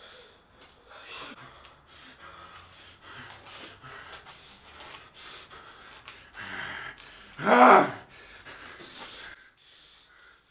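A person breathing hard in quick, ragged gasps through clenched teeth, with one loud strained cry about seven and a half seconds in.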